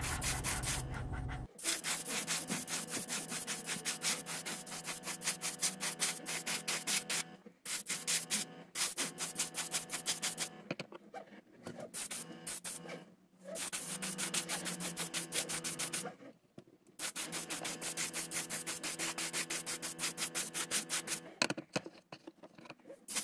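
Airbrush spraying paint, its air hissing in quick, even pulses over a steady low hum. The spraying cuts out briefly several times.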